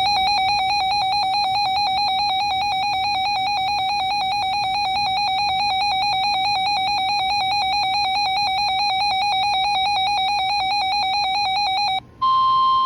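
A weather radio's built-in alert alarm going off: a rapidly warbling electronic tone for about twelve seconds, triggered by an incoming Winter Storm Warning. It cuts off near the end, and a steady, slightly higher warning alarm tone from the broadcast takes over.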